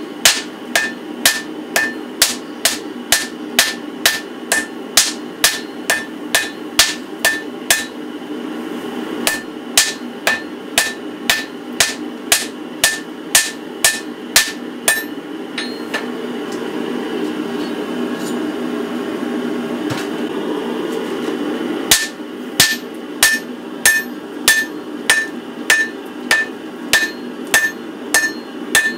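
Hand hammer striking a hot 15N20 and 20C steel Damascus billet on an anvil, about two blows a second, each with a short ring. The blows stop for about six seconds around the middle, leaving a steady rushing noise, then start again.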